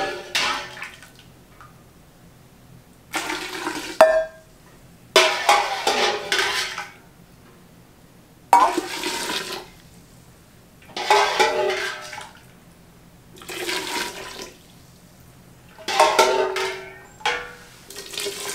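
Hot water poured from a small metal pan into large glass jars of cucumbers, in about seven separate splashing pours of a second or two each. A sharp metal clink sounds about four seconds in as the pan knocks against the stainless stockpot.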